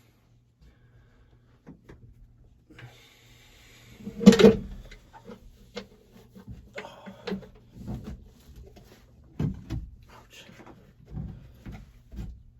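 Scattered knocks and clanks of tools and metal parts being handled while bolts are taken out of a tractor cab's floor cover. There is one louder short burst about four seconds in.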